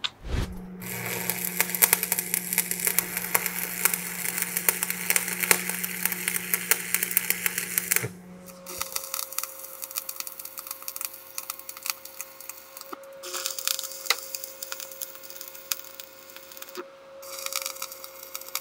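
Stick-welding arc crackling and sputtering as a Post Alloy 301 dissimilar-metal electrode joins mild steel square rod to cast iron. The arc stops briefly a few times between passes, over a steady hum.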